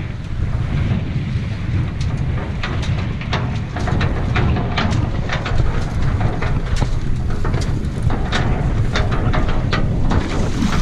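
Wind buffeting the microphone at sea, a dense low rumble throughout. From about two seconds in, a string of irregular sharp ticks and knocks is heard over it.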